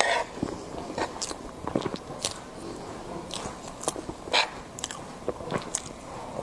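A person biting and chewing meat close to the microphone: irregular short clicks and crackles of mouth sounds.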